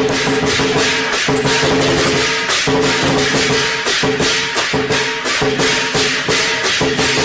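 Background music with held tones over a quick, steady percussion beat.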